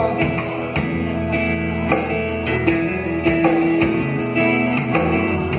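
A band playing an instrumental passage between sung verses: guitars, bass and a steady beat.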